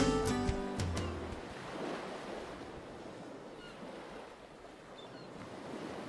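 The last notes of a song die away in the first second, then ocean surf washes in and recedes, swelling twice, with a few faint high chirps.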